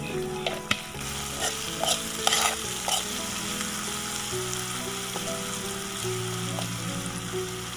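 Onions, garlic and ginger frying in sauces in a metal kadai, sizzling steadily while a spoon stirs and scrapes against the pan, with a few sharp clicks in the first three seconds.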